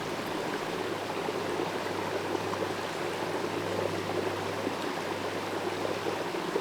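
Small mountain creek running steadily, an even rush of water with no break.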